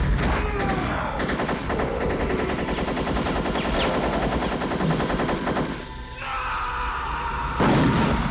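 A Thompson submachine gun firing in long fully automatic bursts, a rapid stream of shots lasting about six seconds. After a short lull, a single loud revolver shot comes near the end, over rising orchestral music.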